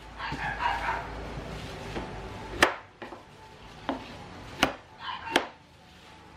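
Cleaver chopping a raw potato on a wooden cutting board: four sharp knocks of the blade against the board in the second half, under a second or so apart, the first the loudest. Softer handling noise fills the first second.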